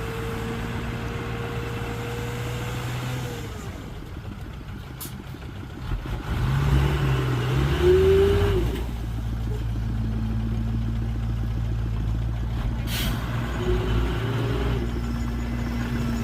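Heavy diesel engine of earthmoving machinery running steadily. It eases off after about three seconds, revs up louder with rising and falling pitch about six to nine seconds in, then settles back to a steady run.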